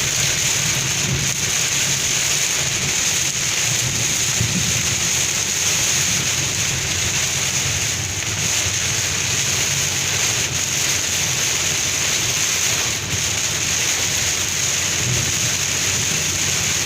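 Heavy rain mixed with hail, pouring down steadily.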